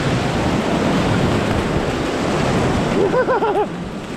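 Ocean surf breaking and foam washing up over the sand at the water's edge, a dense steady rush. Near the end a few quick rising-and-falling whooping calls rise above it.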